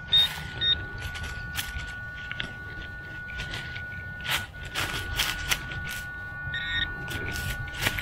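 Handheld metal-detecting pinpointer beeping as it is probed through loose soil in a dug hole: two short beeps at the start and a longer beep near the end, signalling metal in the dirt. Around it, hands scrape and sift soil and dry leaves, over a faint steady tone.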